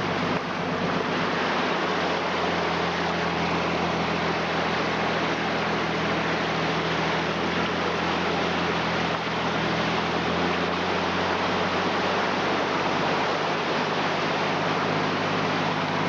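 Nissan Patrol wading through deep floodwater: the engine hums steadily at low revs under a continuous rush and splash of water against the body.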